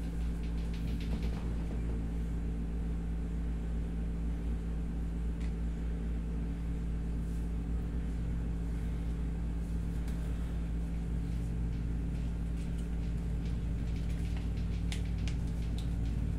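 A steady low hum, with a few faint crackles as kinesiology tape is peeled from its backing and pressed onto a shoulder.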